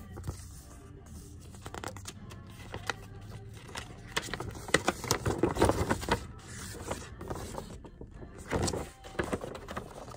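Paper crackling and rustling as a folded poster insert is unfolded by hand, loudest in the middle and again near the end, over background music.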